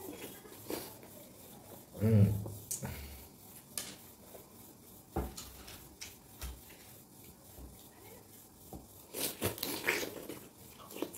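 Close-miked eating of watermelon: wet chewing and slurping mouth sounds, with a short vocal noise about two seconds in, and light clicks of a metal spoon scooping flesh from the rind.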